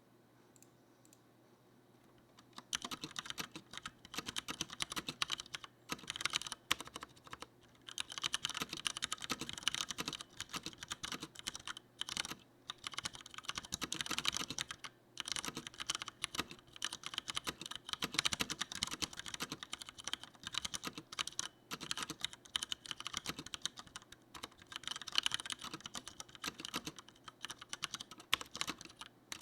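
Steady fast typing on a Leopold FC900R mechanical keyboard with Cherry MX Brown switches: a dense, irregular run of keystrokes that starts about three seconds in, with short pauses now and then.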